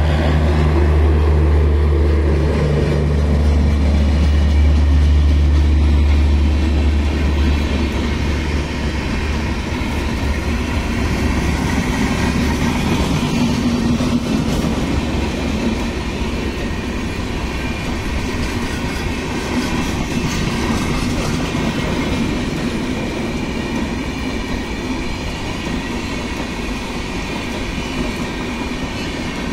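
Passenger train coaches rolling past at speed: a steady rumble of wheels on rail with some clickety-clack. A deep hum in the first seven or so seconds drops away, and the sound eases slowly toward the end.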